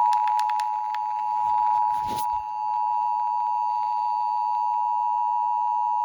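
Emergency Alert System attention tone: a loud, steady, unbroken alarm tone that cuts off abruptly near the end, announcing a tornado warning. A short crackle of static sounds about two seconds in.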